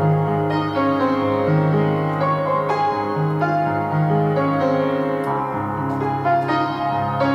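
Background piano music: slow, soft notes and chords held and overlapping.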